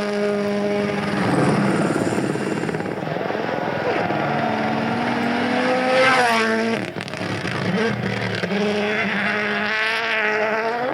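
Rally car engine under hard acceleration as the car passes, its pitch climbing and dropping through gear changes, with a sharp rise and fall about six seconds in.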